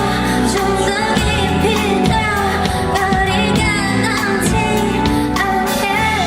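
A Korean pop song playing: sung vocals over a dense, bass-heavy accompaniment, loud and even throughout.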